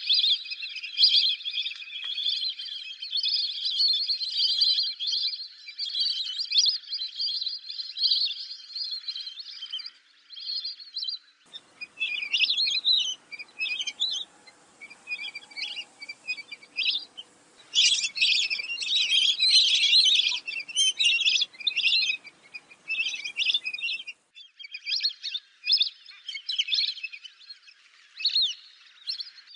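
Many lesser whistling ducks calling in high, overlapping whistles. The calling is dense and unbroken at first. About a third of the way in the sound changes to separate bursts of calls over a faint hum. Near the end the calling thickens again.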